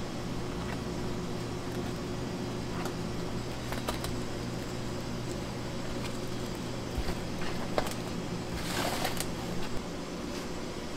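A steady machine hum, with a few light clicks and a short rustle about nine seconds in.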